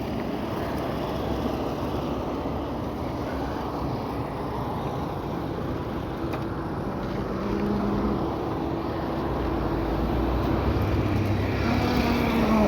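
Road traffic passing: the steady noise of cars going by, with engine hum from passing vehicles that grows louder toward the end.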